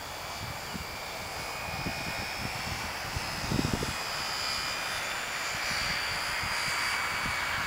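Electric motor and propeller of a HobbyZone Super Cub radio-controlled airplane in flight, a steady high whine that drifts slightly in pitch and grows a little louder toward the end. Wind buffets the microphone, with a stronger gust about three and a half seconds in.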